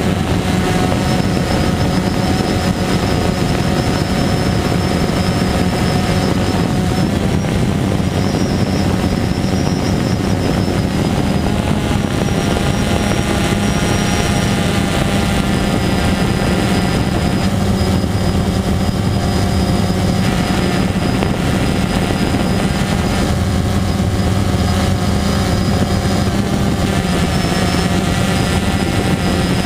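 DJI Phantom 2 quadcopter's four T-Motor MN2214 motors and propellers in flight, heard from the GoPro slung beneath it: a loud, steady buzz whose pitch shifts slightly now and then as the motor speeds change.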